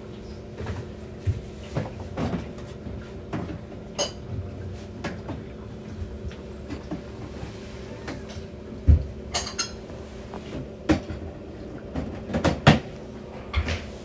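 Irregular household knocks and light clatters, like objects being handled and set down, with a heavier low thump about nine seconds in and a quick cluster of knocks near the end. A steady low hum runs beneath.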